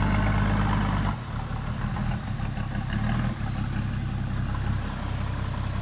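Toyota Land Cruiser 80 off-road vehicle's engine running at low speed as it eases forward into deep mud ruts. Its note steps down about a second in and again a couple of seconds later, as the throttle comes off.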